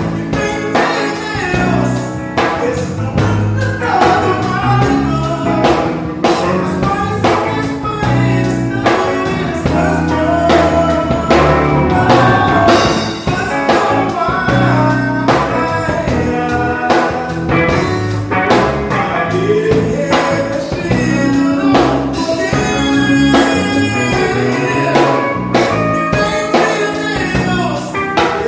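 Band music with singing over a drum kit and guitar, the drums keeping a steady beat.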